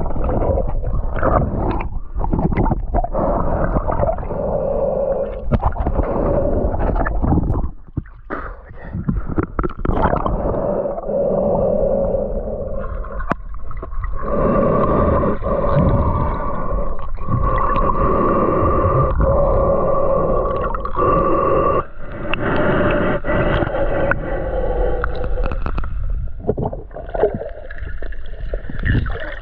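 Muffled underwater sound picked up by a submerged camera: gurgling water movement and repeated knocks, with a steady hum that comes and goes.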